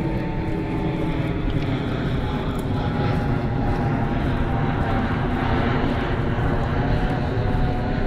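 Jet airliner flying low overhead, its engines making a steady loud rumble with whining tones that slowly fall in pitch as it passes.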